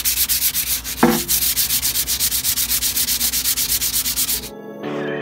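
Sandpaper rubbed by hand over a rusty 50cc scooter exhaust pipe: fast back-and-forth scraping strokes, about eight a second, with a short squeak about a second in. The sanding stops abruptly near the end and background music comes in.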